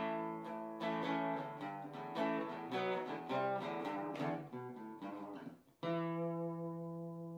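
Instrumental acoustic guitar music: a run of picked notes, then a single chord struck just before six seconds in that rings on and slowly fades.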